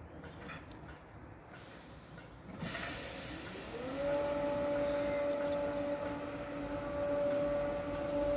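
Class 313 electric multiple unit starting away from a station stop. A sudden burst of air hiss comes about two and a half seconds in. Then a whine rises in pitch and settles into a steady hum as the train begins to move.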